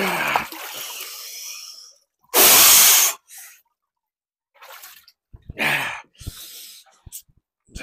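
A man gasps and breathes hard as he stands up out of an ice bath, water running off his body back into the tub for the first couple of seconds. About two and a half seconds in comes one very loud, forceful breath out, followed by shorter heavy breaths.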